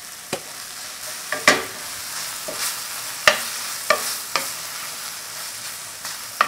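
Kimchi with gochujang sizzling in a stainless steel frying pan as a wooden spoon stirs it, with sharp knocks of the spoon against the pan about six times.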